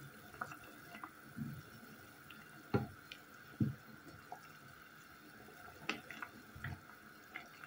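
Water boiling in a stainless-steel saucepan, bubbles popping and crackling, as a wooden spoon stirs and knocks against the pan several times, the loudest knocks about three and three and a half seconds in. A faint steady high hum runs underneath.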